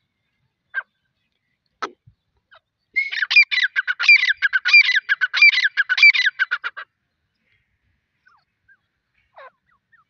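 Gray francolin calling: a couple of single short notes, then a fast run of repeated high notes lasting nearly four seconds, with five louder phrases about two-thirds of a second apart. One faint note follows near the end.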